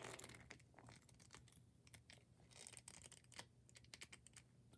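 Faint, irregular clicks and scratches of a Tapcon masonry screw being turned in slowly by hand with a screwdriver, its threads cutting into the broken-off statue head.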